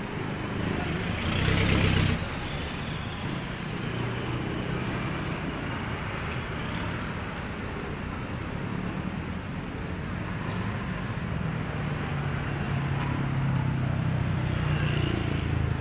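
Road traffic noise: a steady low rumble of passing vehicles, louder briefly about a second and a half in and swelling again near the end.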